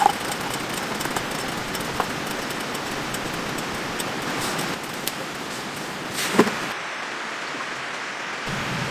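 Steady rain falling, with scattered drip taps and one louder knock about six seconds in.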